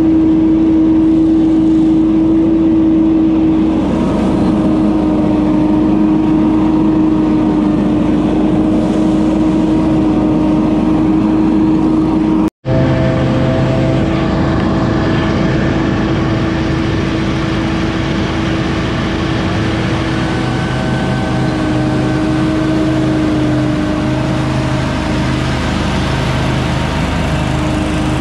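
Leaf blower engine running steadily at high speed, a loud continuous drone with a strong steady pitch that drifts only slightly. The sound cuts out for an instant about halfway through.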